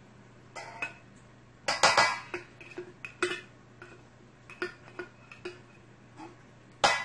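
Irregular knocks and clinks on a stainless steel mixing bowl, which rings briefly after each, as mayonnaise is scraped out of a bottle into it with a wooden spoon; the loudest come about two seconds in and just before the end.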